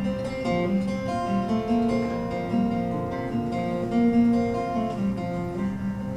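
Acoustic guitar playing an instrumental break with no voice: a melody of held, overlapping notes.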